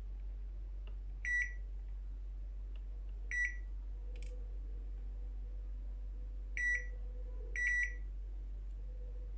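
Digital multimeter's continuity buzzer giving four short, high beeps, irregularly spaced, as the probes touch points on a laptop motherboard. A steady low hum runs underneath.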